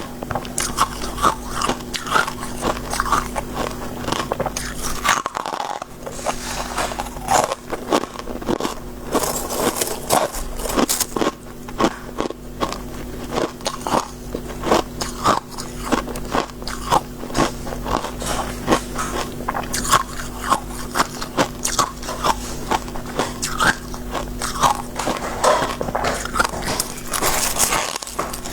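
Close-miked crunching of soft shaved freezer frost being bitten and chewed: a steady run of crisp crunches, several a second.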